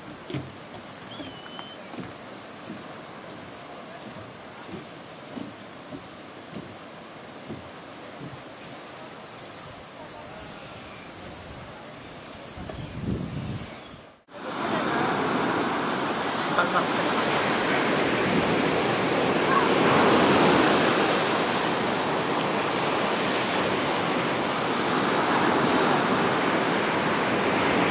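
A steady high chorus of cicadas with footsteps on a boardwalk, then after a sudden cut about halfway through, the even rush of surf breaking on a sandy beach.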